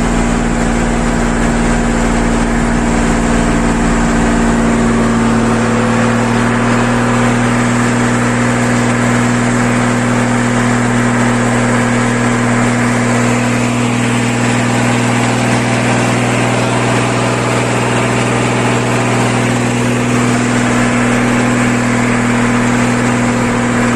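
Loaded Mercedes-Benz 1620 truck's diesel engine pulling up a steep climb in first gear, the exhaust rumbling at steady revs. The deepest rumble eases off about five seconds in while the engine note holds.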